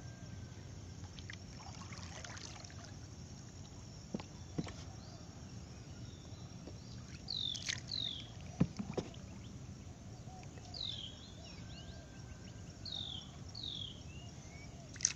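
Outdoor ambience: a steady low rumble under short, high chirps that fall in pitch, mostly in pairs, and a few sharp knocks, the loudest about halfway through and at the very end.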